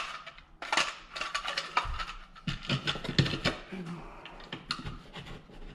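Irregular clicking and rattling of plastic wall-plate parts being handled and pushed into a drywall cutout, as a recessed cable pass-through plate and its mounting box are fitted.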